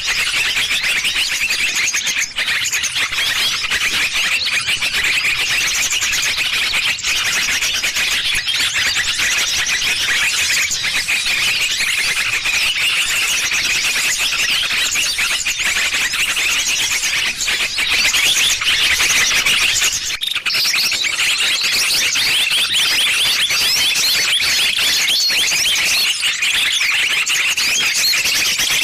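Small-bird lure call (pikat burcil): a dense, unbroken mass of high-pitched chirps and twitters packed closely together, the kind played to draw small birds in.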